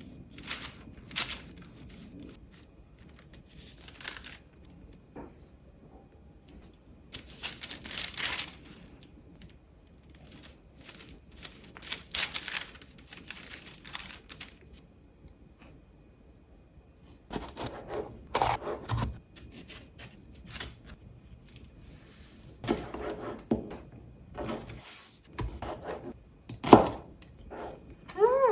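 Kitchen food-preparation handling noises: short noisy scrapes and light knocks in scattered bursts of a second or two, with quieter gaps between.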